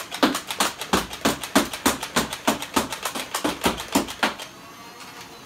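Nerf Elite Stryfe, a battery-powered flywheel blaster, firing foam darts in a rapid string of shots, about five a second, stopping a little over four seconds in.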